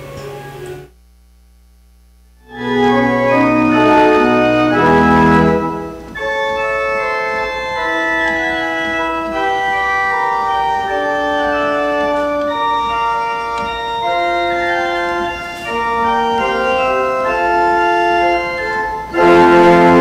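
Church organ playing slow, sustained chords, starting after a short silence about two and a half seconds in and swelling louder near the end.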